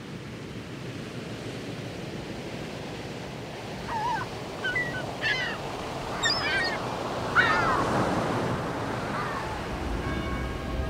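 A steady rushing noise fades in. Over it, a series of bird cries, short calls that rise and fall in pitch, come between about four and nine seconds in. Music begins near the end.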